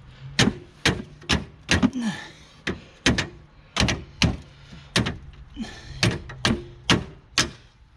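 Hammer blows knocking out a BMW E36's plastic kidney grille: a series of sharp knocks at roughly two a second, with short pauses between groups.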